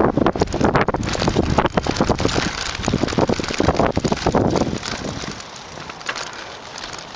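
Mountain bike jolting over bumpy dirt, a dense clatter of rattles and knocks with knobby-tyre crunch and wind rushing on the microphone. About five seconds in, the rattling eases into a quieter, steadier rush of tyres and wind.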